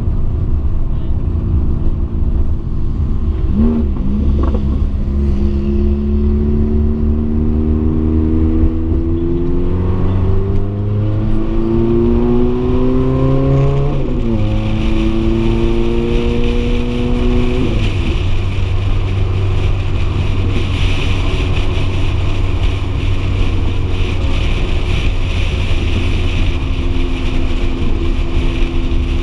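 Ferrari F430's V8 engine accelerating, its pitch climbing for several seconds and dropping sharply at upshifts about halfway through and again a few seconds later, then settling into a steady cruise. A rushing wind noise grows over the second half.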